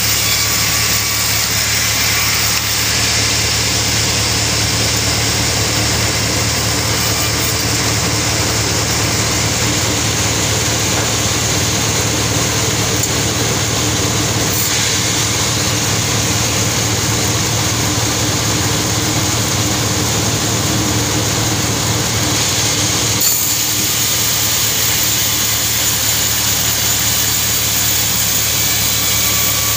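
Sawmill machinery running steadily, a constant engine-like drone with hiss on top, holding an even level throughout.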